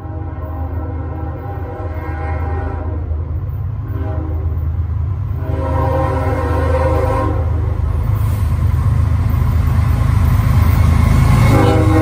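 Norfolk Southern freight train with three diesel locomotives approaching and passing, the engine rumble growing louder throughout. The lead locomotive's horn sounds a series of blasts: a long one at the start, a shorter one, another long one from about five and a half to eight seconds in, and a brief one as the locomotives reach the platform near the end.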